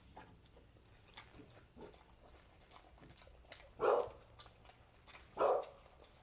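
A large dog barking twice, single short barks about a second and a half apart.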